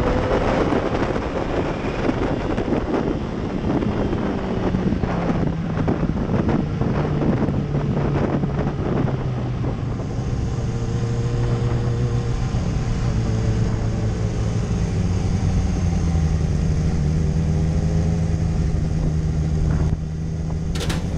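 Kawasaki Ninja H2's supercharged inline-four engine running at low cruising speed, its pitch drifting gently up and down, with wind noise on the on-bike microphone. Music comes in right at the end.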